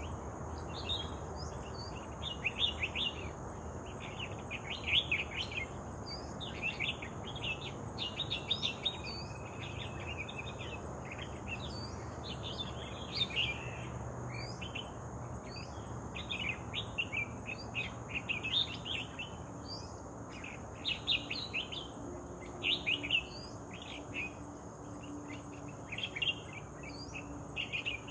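Small birds chirping in quick, short calls again and again, over a steady high-pitched insect drone.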